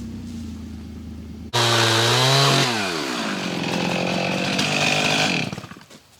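A gasoline chainsaw at high revs, its pitch dropping steeply as the throttle is released, idling briefly and then shutting off near the end. Before the saw, about the first second and a half, a lower engine runs steadily and cuts off abruptly.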